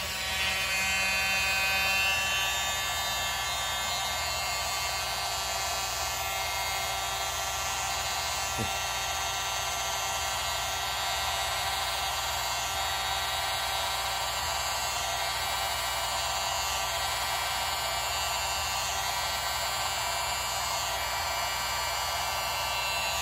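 Hair dryer running steadily with a small-motor whine, blowing wet acrylic pour paint outward across a tile to open it into a bloom. It comes on at the start and cuts off near the end.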